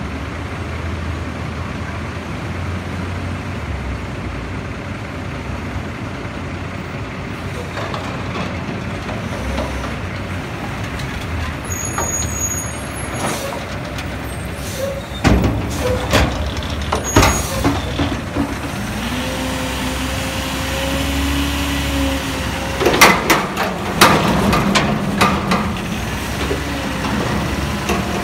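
McNeilus front-loading garbage truck's engine running as it pulls up. About halfway through, its forks clank against a steel commercial dumpster, then the engine revs with a steady hydraulic whine for a few seconds. Loud metal bangs follow as the dumpster is hoisted up over the cab.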